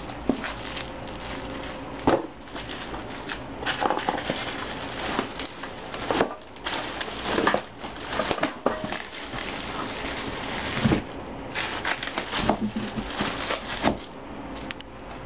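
Plastic wrapping crinkling and crackling as it is handled around the weight bench's steel parts and foam rollers in a cardboard box, with irregular rustles and light knocks.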